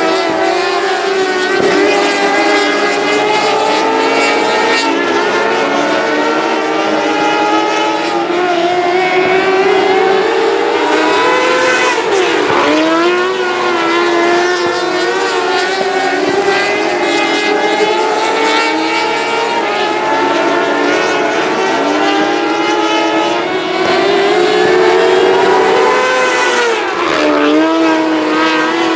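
Several Micro 600 sprint cars racing on a dirt oval, their 600 cc motorcycle engines running at high revs, the pitch rising and falling as they lift for the turns and accelerate down the straights. Cars pass close by, with a drop in pitch, about twelve seconds in and again near the end.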